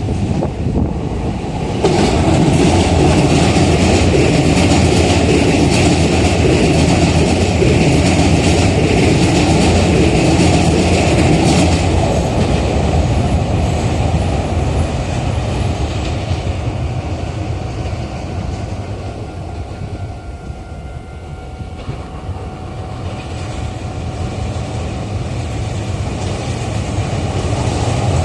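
Electric commuter train passing through a level crossing, its wheels clattering over the rail joints. It comes in suddenly about two seconds in, stays loud, and fades away after about sixteen seconds. A second train builds up near the end.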